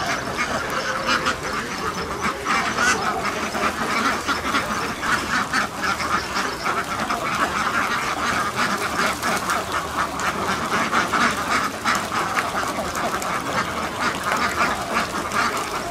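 A large flock of domestic laying ducks quacking, many short calls overlapping without pause.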